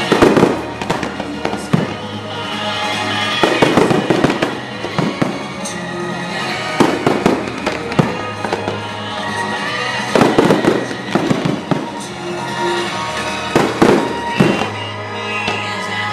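Aerial fireworks bursting in clusters of loud bangs every few seconds, over a music soundtrack that plays throughout.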